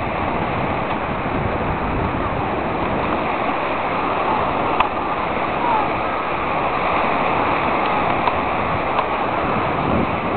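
Steady rush of surf on a beach mixed with wind blowing over the microphone, with one small click about halfway through.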